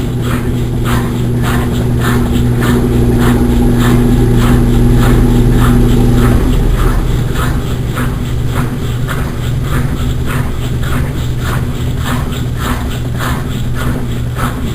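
Consul Maré Super 10kg washing machine running: a steady motor hum with a rhythmic swish repeating two to three times a second. A higher motor tone drops away about six and a half seconds in.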